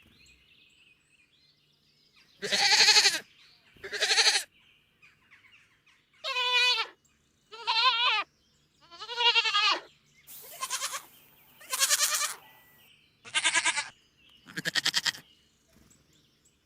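Goat bleating: about nine short separate bleats with brief pauses between them, the ones in the middle wavering in pitch.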